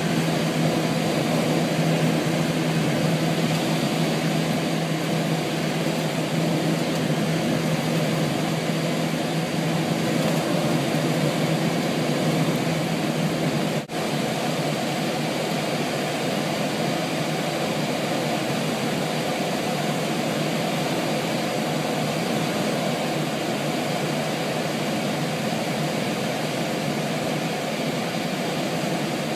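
Steady drone of a tow plane's propeller engine heard from inside a glider cockpit during an aerotow, mixed with constant airflow noise over the canopy. The sound drops out briefly about halfway through and then continues, with the low engine tone fainter.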